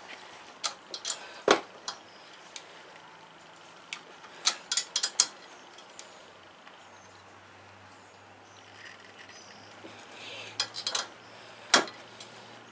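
Scattered metallic clicks and clinks of wrenches being handled on a car's front strut and brake rotor, with sharp knocks about a second and a half in and again near the end.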